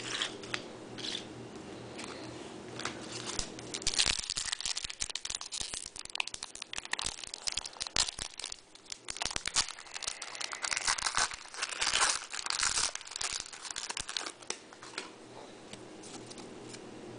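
Foil trading-card pack wrappers being torn open and crinkled. A few light rustles at first, then dense crinkling and crackling from about four seconds in, dying down near the end.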